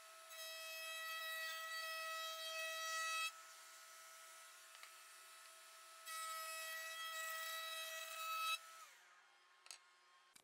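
Router table with a 3/4-inch quarter-round bit running with a steady whine, which gets louder as a board is fed through the bit, for about three seconds near the start and again from about six seconds in with the board flipped over. Near the end the router is switched off and its whine falls away to silence.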